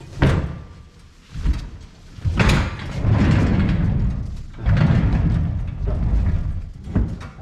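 Metal stair cart clanking as someone steps off it, then a wheeled metal step cart rolled across a concrete floor: a low rumble of its casters in two pushes, with knocks of the frame.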